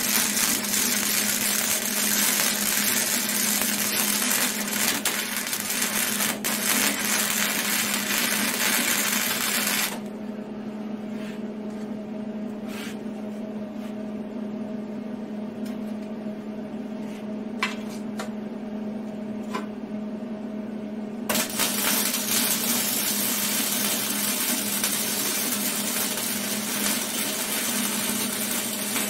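MIG welder arc running on flux-core wire, a steady crackle for about ten seconds that stops abruptly. A few light clicks follow during the pause, and the crackling arc starts again about twenty-one seconds in. A steady low hum sits underneath throughout.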